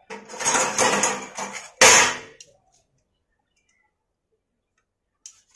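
Metal tools clattering for about a second and a half, then one sharp metallic clank.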